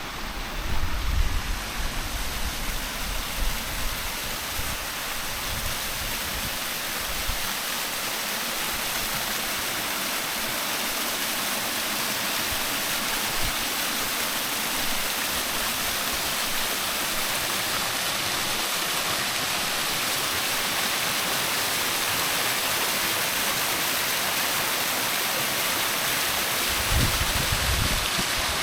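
Waterfall water rushing steadily, growing a little louder over the first several seconds. Low rumbles in the first few seconds and again near the end.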